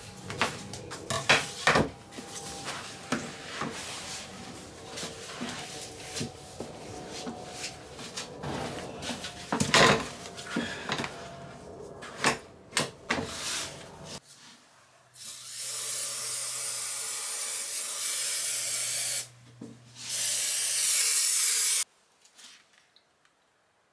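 Scissors snipping through a sheet of vinyl, with crisp rustling and clicks as the sheet is handled. This is followed by two long hisses of spray contact adhesive from an aerosol can, the second shorter and louder, stopping abruptly.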